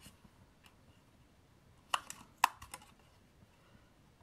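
Hand-held revolving hole punch pliers punching small holes through paper: two sharp clicks about half a second apart near the middle, with a few fainter clicks around them.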